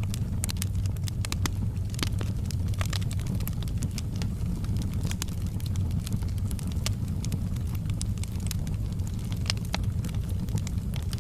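Wood fire crackling in a fireplace: frequent, irregular sharp pops and snaps over a steady low rumble of the burning fire.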